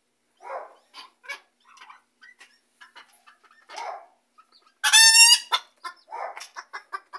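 Bantam chickens clucking in short calls, then about five seconds in one loud, drawn-out, high-pitched squawk. It is the alarm call that the keeper takes as the sign a hen has just laid her egg.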